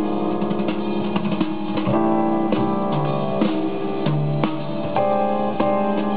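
Keyboard-led music with drums, played back through a Luxman SQ38FD valve amplifier and loudspeakers.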